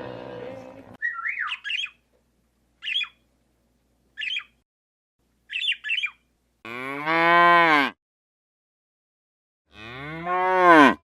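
The end of a roar, then a few short high squawks, then two long moos, each rising and falling in pitch, the second cut off sharply near the end.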